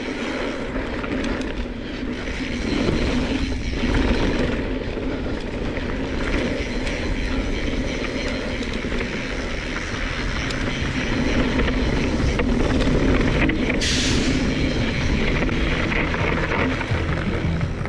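Mountain bike rolling down a dirt and gravel trail: wind buffeting the camera microphone and tyre noise on the dirt, with the bike rattling over the bumps. A brief louder hiss about fourteen seconds in.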